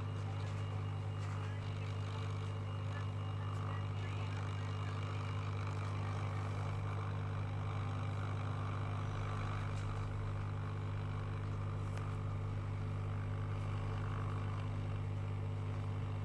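Steady low electrical hum with a faint fan-like hiss from the repair bench equipment, unchanging throughout.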